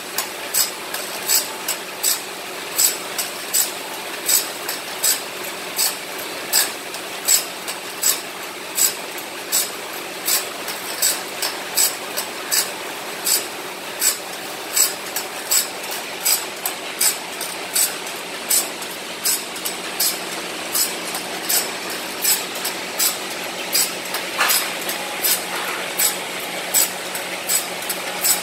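Automatic saw-sharpening machine grinding a wide bandsaw-mill blade: its motor hums steadily while the grinding wheel works the blade tooth by tooth, a short grinding stroke about twice a second.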